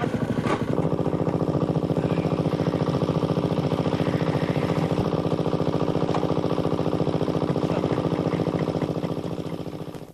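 Small generator engine running steadily with a fast, even firing beat, fading away near the end.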